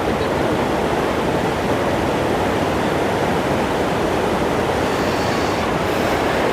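Athirappilly Falls on the Chalakudy River: the steady, even rush of falling water.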